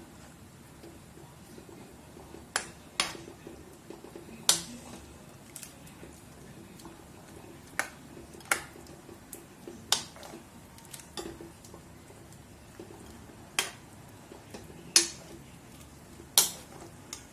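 Steel ladle stirring chicken curry in a steel kadai, clinking sharply against the pan about ten times at irregular intervals.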